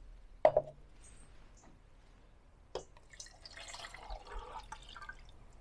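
Water poured from a plastic measuring jug into a small titanium camping pot, an uneven splashing pour for about two seconds in the second half. A sharp knock comes about half a second in.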